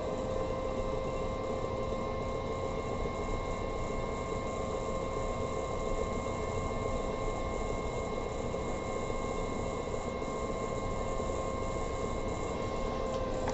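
Electric pottery wheel running at a steady speed: a constant motor whine over a soft hiss, unchanging throughout.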